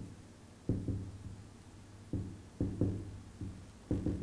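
Marker pen writing on a whiteboard: a string of short strokes, each starting sharply and dying away quickly, about two a second.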